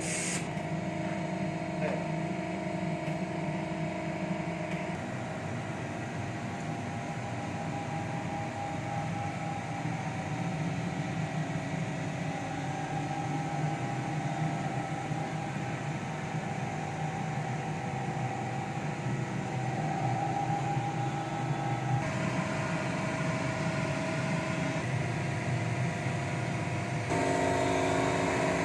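CNC lathe running under power: a steady machine hum with whining tones that change pitch in steps several times, about five seconds in and again near the end.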